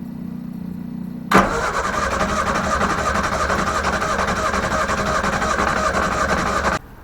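Classic Mini's engine being turned over on the starter: a sudden start a little over a second in, then about five seconds of rapid, even cranking that cuts off abruptly near the end. A steady low hum comes before it.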